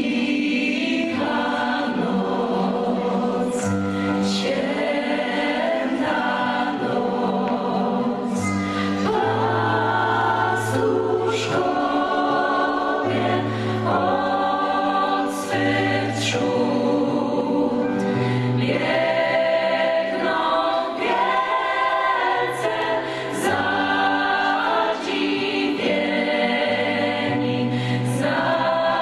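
Gospel choir singing in harmony, backed by keyboard, bass guitar and a drum kit with cymbal strikes every few seconds.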